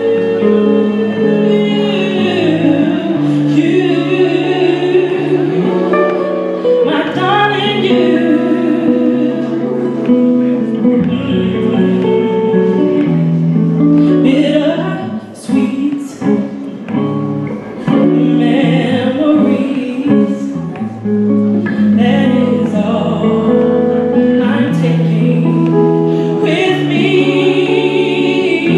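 A woman singing live into a microphone, accompanied by an electric guitar. The music drops briefly in level about halfway through, then carries on.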